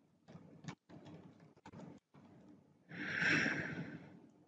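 A few faint computer keyboard key clicks in the first two seconds, then a person's breath close to the microphone lasting about a second, a little after three seconds in.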